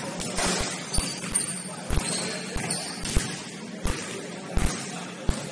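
Basketball bouncing on a gym floor during play: sharp thuds at uneven spacing, about six of them, over steady background noise, with a few short high squeaks.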